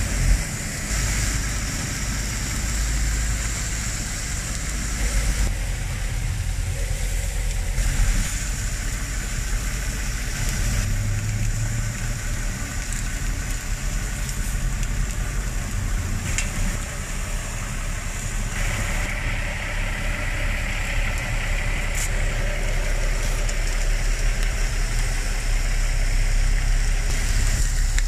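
Ham slices and beef burger patties sizzling on a flat-top griddle over a steady low rumble. The sizzle gets louder about two-thirds of the way through, and there are a couple of light clicks of a metal spatula.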